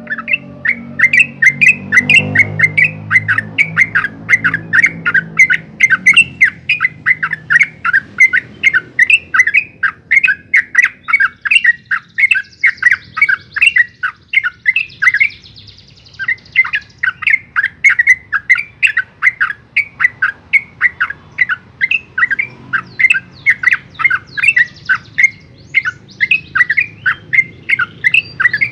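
Yellow-vented bulbul singing a long, unbroken run of rapid chattering notes, about three to four a second, with a short break about halfway through.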